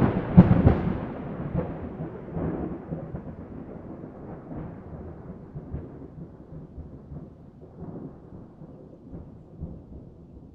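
Thunder: sharp cracks in the first second, then a long low rumble that slowly dies away.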